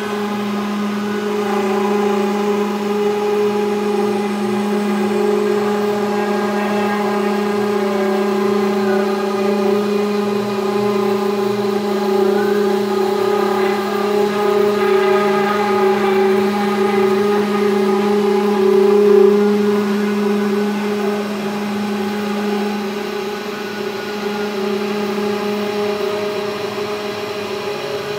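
CNC 3040 router's spindle running with a steady whine as the machine V-carves a wood board. The lowest tone weakens about 23 seconds in.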